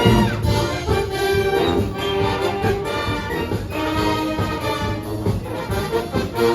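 Brass band playing a Manila sound medley, trumpets and trombones carrying the tune.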